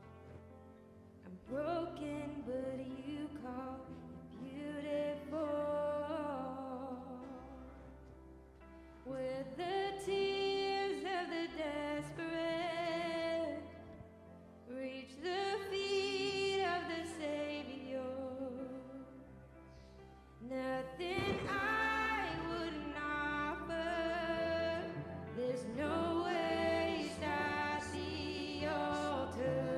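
Worship song: a voice singing long, held phrases over sustained instrumental chords, the low notes changing every few seconds.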